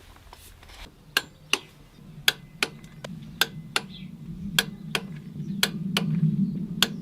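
Wrench ratcheting while the camshaft sprocket bolts are tightened: sharp metallic clicks, mostly in pairs, about one pair a second. A low steady hum builds underneath from about two seconds in.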